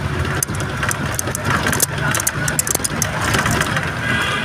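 Cabin noise inside a moving road vehicle: a steady low engine and road drone, with frequent short rattling clicks.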